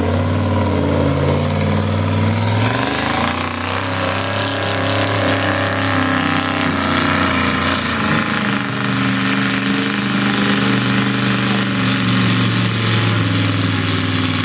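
Mud-bogging truck engine running loud, its pitch shifting as it revs during the first few seconds and then holding fairly steady under load.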